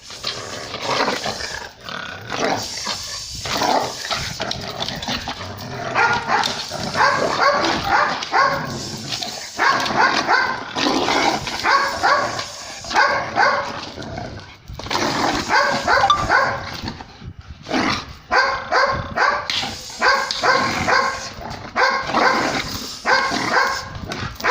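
A German shepherd barking over and over in rapid runs, about three barks a second with brief pauses between runs. The barking is that of a dog in guard-dog training.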